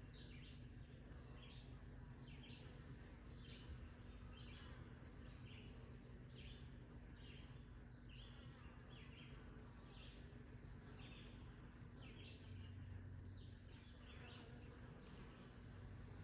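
Faint honeybee buzz at a swarm trap entrance, a steady low hum, with a regular series of short high chirps, one or two a second.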